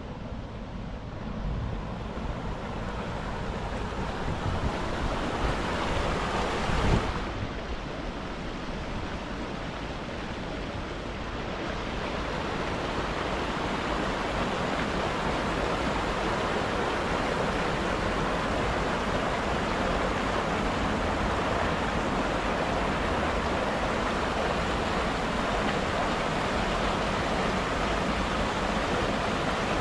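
Mountain stream rushing steadily over rocks and through small cascades. A single brief thump about seven seconds in.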